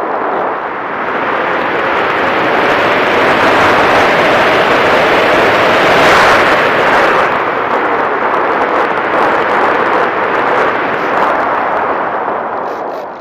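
Airflow rushing and buffeting over the onboard camera's microphone on a Bixler RC foam plane in flight, with a faint steady hum beneath it. The rush swells to its loudest about six seconds in and drops off near the end.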